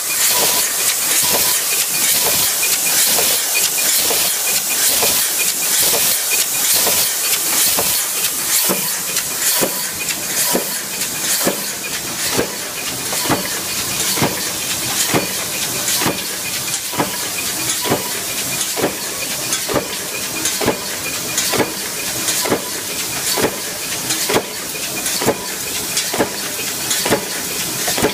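Flywheel-driven mechanical punch press running continuously, stamping sheet-metal slingers: a sharp metallic hit a little more often than once a second over a steady hiss.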